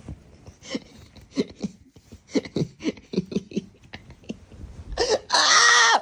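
A person's voice in short laughing, coughing bursts, then a loud drawn-out yell lasting about a second near the end.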